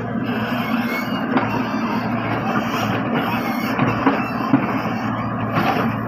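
Wheeled excavator's diesel engine running steadily as it digs, with a few short knocks of the bucket working the ground, two of them close together about four seconds in.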